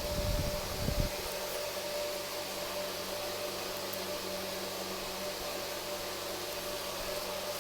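Steady background hiss with a constant hum tone, with a few low bumps in the first second.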